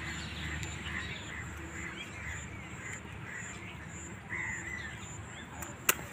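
Birds calling, scattered short calls and a longer one about four seconds in, over a faint high pulsing tone. A single sharp click near the end is the loudest sound.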